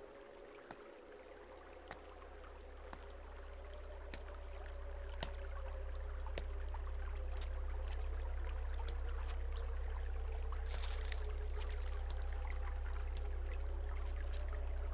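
Deep, steady drone of horror-film background score, swelling in loudness over the first several seconds and then holding, with fainter sustained higher tones and scattered light clicks; a brief hiss about eleven seconds in.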